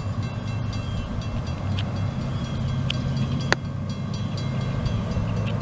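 Steady low rumble of a CSX freight train's diesel locomotives, with a few sharp clicks about two, three and three and a half seconds in.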